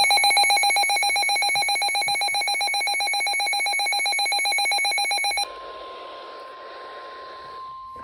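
Emergency alert tones announcing a new severe thunderstorm warning: a loud, rapidly pulsing electronic alarm tone for about five and a half seconds, which then gives way to a steady single-pitched alert tone.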